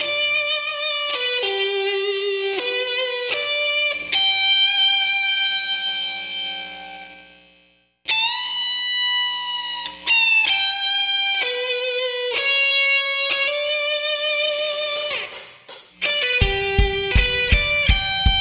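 Instrumental background music: a melody of long held notes, with a steady drum beat coming in near the end.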